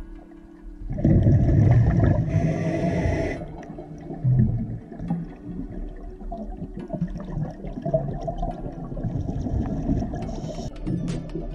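Underwater bubbling and rushing from a scuba diver's exhaled breath leaving the regulator. A loud burst of bubbles starts about a second in and lasts a little over two seconds, then lower, uneven bubbling follows, with a fainter rush near the end.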